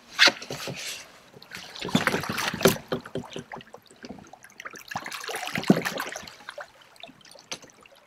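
A plastic fishing kayak knocking and bumping as a person shifts his weight and stands up in it, with water splashing against the hull. The knocks are irregular, the loudest just after the start and again near the middle.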